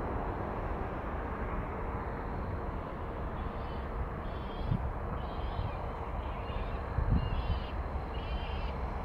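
Steady distant rumble of a twin-engine wide-body jet airliner's engines on the runway. From a few seconds in, a bird calls repeatedly over it, about seven short calls.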